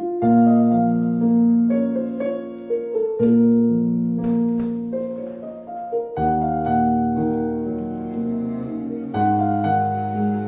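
Piano-led instrumental intro of a Vietnamese ballad, played back through a 300B single-ended tube amplifier and Q Acoustics 3050 speakers: sustained chords that change about every three seconds under a slow melody, beginning suddenly from silence.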